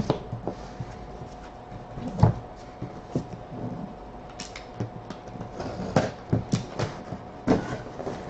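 A cardboard box being handled and opened by hand: a string of sharp knocks, taps and scrapes of cardboard, the loudest about two seconds in and several more close together near the end.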